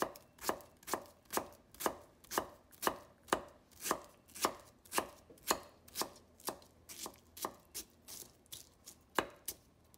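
Kitchen knife dicing peeled mango on a wooden cutting board: steady knocks of the blade hitting the board, about two a second, with a short pause near the end.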